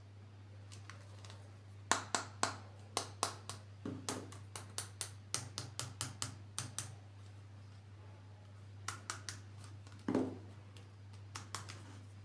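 Quick runs of sharp plastic clicks and taps from small plastic toy figures and parts being handled and snapped together, with a few scattered clicks later on, over a steady low hum.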